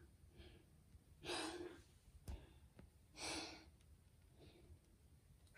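A woman breathing hard and out of breath after about twenty minutes of a full-body workout: two heavy, breathy exhalations about a second and a half and three seconds in, with fainter breaths between, and one small click in the middle.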